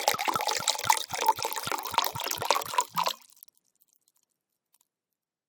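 Wine poured from a glass bottle, glugging in quick, regular gulps, about four a second, as air bubbles back into the bottle. The pour stops about three seconds in.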